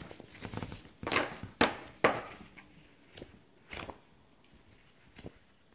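Sticker sheets and their packaging being handled: rustling, with sharp knocks about one and two seconds in, then a few fainter taps.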